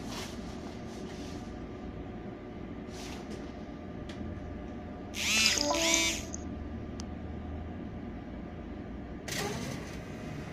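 Sberbank payment terminal's receipt printer running near the end as it prints the payment receipt, over a steady machine hum. About halfway there are two short, loud warbling sounds.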